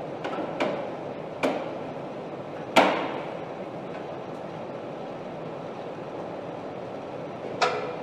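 Assembly-line factory hall: a steady machinery hum with several sharp clanks that ring briefly, a quick pair in the first second, one at about a second and a half, the loudest near three seconds in and another near the end.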